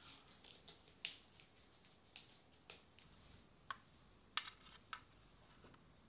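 Light clicks and rattles of sunflower seeds being scooped by hand from an enamel pot into small metal tins, a sharp tick every half second to second, with three close together about four and a half seconds in.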